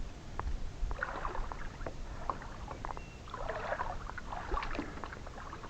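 Water splashing and sloshing against a kayak, with light knocks and clicks on the hull. There are two longer swells of splashing, about a second in and again near four seconds.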